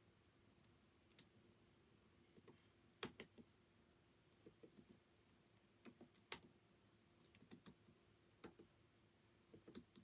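Faint computer-keyboard typing: scattered keystrokes, singly and in small irregular clusters, with a couple of sharper key hits about three and six seconds in.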